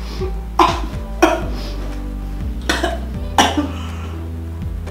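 A woman coughing four times in short, sharp coughs, her throat burning from extremely spicy noodles, over background music.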